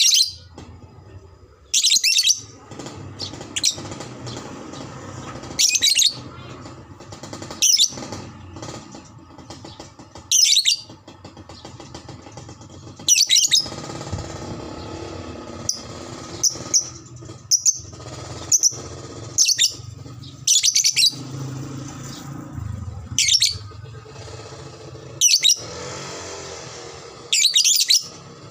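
Lovebird giving short, shrill chattering calls, repeated every one to three seconds over a steady, fainter low background.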